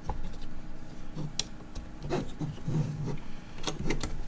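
Hands working a small plastic cable connector onto its pins on a keyboard circuit board: soft rubbing and handling with a few sharp plastic clicks, one about a second and a half in and two close together near the end.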